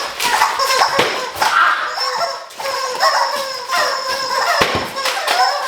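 Squeaky rubber toys squeezed over and over in short squeals, with a couple of sharp knocks and some voices in the mix.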